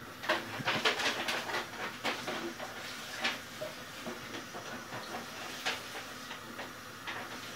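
Kitchen tap running into a stainless-steel sink while a pan is washed, with clinks and knocks of metal dishware. The water comes on suddenly.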